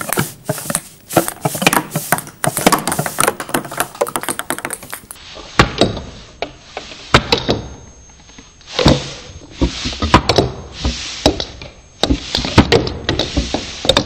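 Homemade cardboard-tube ping pong ball cannon firing repeatedly as its piston is pushed, each ball blown out past a stretched balloon seal, with ping pong balls and cardboard-roll skittles clattering and bouncing. A quick run of sharp clicks comes first, then a series of louder puffs with thumps about a second apart.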